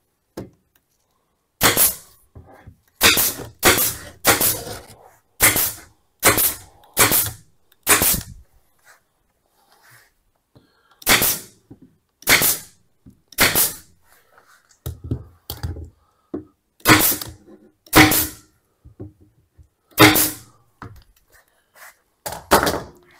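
An 18-gauge narrow-crown stapler firing staples into a wooden cabinet frame again and again: about eighteen sharp shots spaced irregularly about a second apart, with a short pause in the middle.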